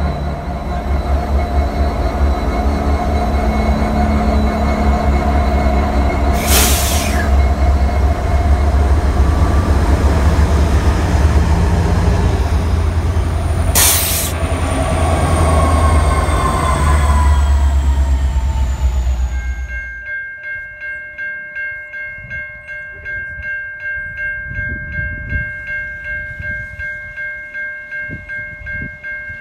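Norfolk Southern diesel locomotives running light, passing close by: heavy low engine rumble and wheel noise, with two sharp bangs about a quarter and halfway through. About two-thirds of the way in the rumble falls away abruptly and a Nathan P5 five-chime air horn sounds one long steady chord from down the track, with wheel clicks beneath it.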